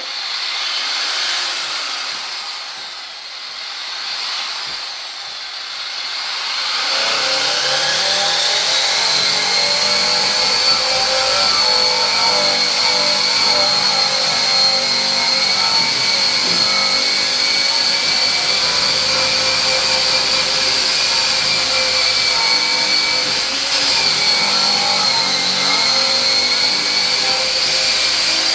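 A motor-driven machine running continuously with a steady high whine over a broad rushing noise, building up over the first seven seconds or so and then holding level.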